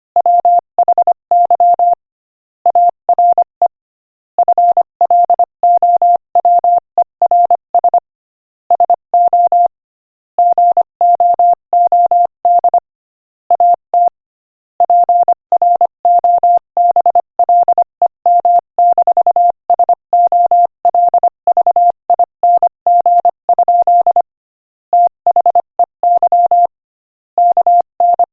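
Morse code sent at 25 words per minute: a single pure beep tone keyed rapidly on and off in dots and dashes, in runs of letters broken by short pauses between words.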